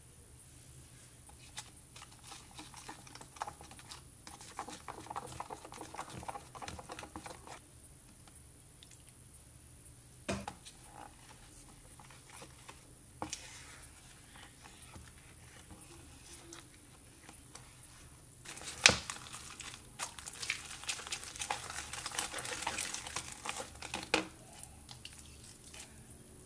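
Pink glue slime being stirred with a spoon in a plastic cup: stretches of wet, crackling squishes as it thickens, with a few sharp clicks of the spoon against the cup, the loudest about two-thirds of the way through.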